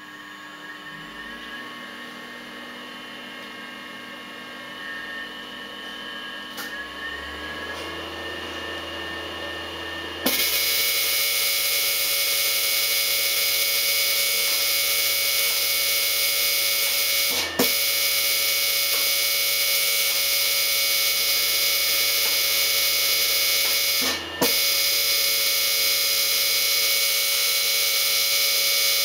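Tesla coil powering up: a hum with steady tones grows gradually for about ten seconds, then the coil fires with a sudden, much louder steady buzzing hiss that runs on, broken twice by a brief dropout. It is running with a new, smooth topload that throws no proper streamers, which the owner suspects is too smooth and needs a breakout point.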